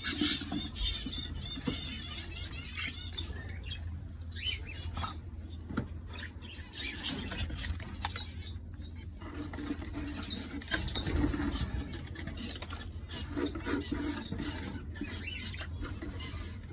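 Small cage birds chirping in short bursts and fluttering their wings, with scattered knocks from a hand in a wooden nest box. A steady low hum runs underneath.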